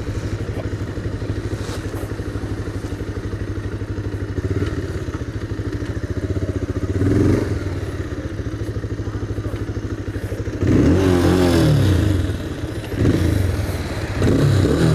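Bajaj Pulsar 220F's single-cylinder engine and exhaust, running with a steady beat as the bike rolls to a stop. Near the end the revs rise and fall a few times as the throttle is blipped.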